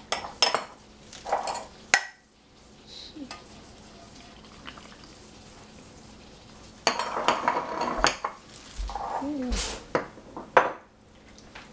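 A stainless steel saucepan and small glass jars clinking together as liquid is poured from the pan into the jars: a few sharp clinks at the start, a quieter stretch, then a busier spell of pouring and clinking from about seven seconds in.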